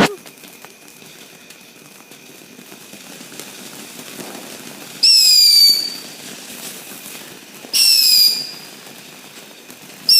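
Consumer whistling firework going off: a sharp pop, then loud shrill whistles of under a second each, dropping slightly in pitch, about every two and a half seconds. Three whistles in all, the last starting at the very end. Really loud.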